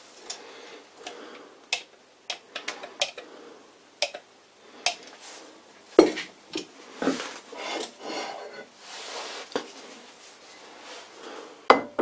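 A pump oil can clicking as oil is squirted in drops onto a lathe's cross slide. Then cast-iron lathe slide parts clink, knock and scrape as they are handled and set in place, with a loud clank near the end.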